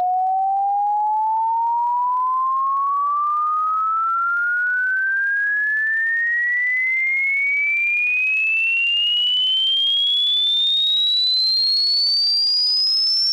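Sine-wave test tone sweeping smoothly and steadily upward in pitch, from a mid whistle to a high, thin tone: the upper end of a low-to-high frequency sweep for testing speakers.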